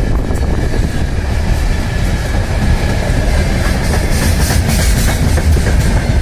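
Freight train wagons rolling past on continuous welded rail: a loud, steady rumble of wheels on jointless track, with a faint steady ringing tone and a stretch of high hiss about four seconds in.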